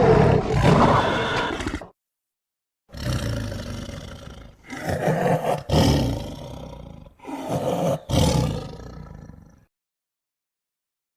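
Sound-effect roars made for a Gorgosaurus, a tyrannosaur dinosaur. One roar ends about two seconds in, and after a short pause comes a run of four roars, each starting loud and fading, before the sound stops near the end.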